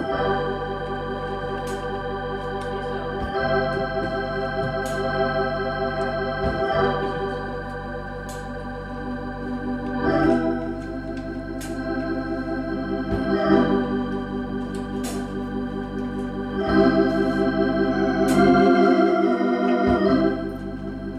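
Organ playing held chords with a wavering vibrato, moving to a new chord about every three seconds, with no voices.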